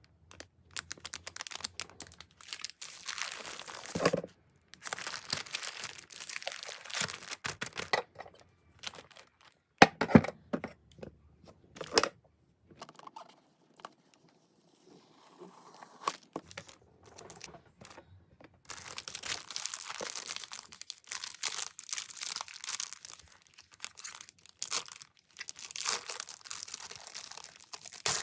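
Packaging being torn open and crinkled by hand in stretches, with a few sharp knocks and a quieter lull about midway.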